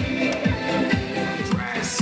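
Electronic dance-pop music played through a Panasonic SC-HC37 compact stereo system, with a steady bass kick drum about twice a second.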